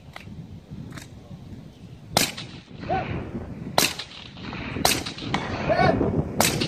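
Shots from a 10.5-inch 5.56 short-barreled rifle fired at a slow, aimed pace: four loud sharp shots about a second or more apart, with fainter cracks between them. A short voice call follows several of the shots.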